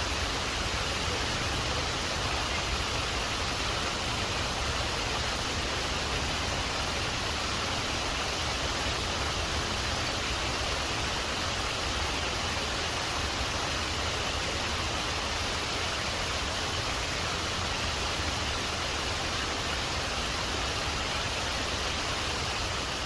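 Steady, unbroken rush of a waterfall splashing over rocks.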